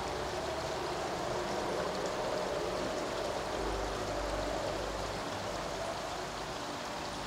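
Small rocky forest stream flowing over stones: a steady, even rush of running water.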